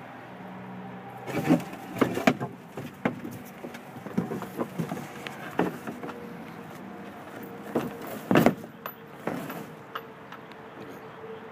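Stored things being handled and moved: plastic bags rustling, with a string of knocks and clatters, the loudest about eight seconds in.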